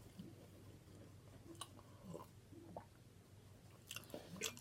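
Faint chewing with a few soft mouth clicks and smacks: a person eating fried chicken gizzards.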